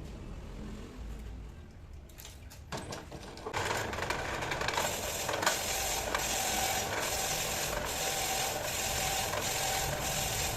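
A workshop machine starts up about three and a half seconds in and runs steadily, a mechanical whirr with a faint regular ticking.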